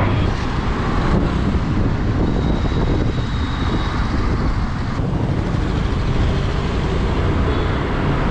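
Wind and road noise from riding a motor scooter, a steady rushing noise heaviest in the low end, with passing traffic. The sound changes abruptly about a second in and again about five seconds in, where clips are cut together.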